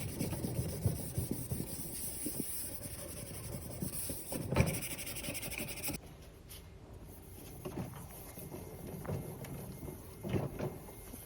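Scrubbing rust off a dishwasher with a powdered cleanser: irregular rubbing and scraping strokes, quieter in the second half.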